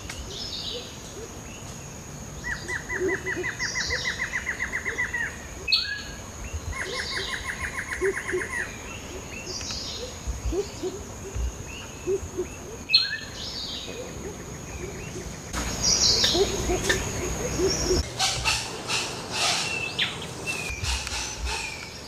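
Tropical forest birds calling: many short, low hooting notes, two rapid trills, and a steady high whine behind them. After a cut near the end there are sharp clicks and chirps.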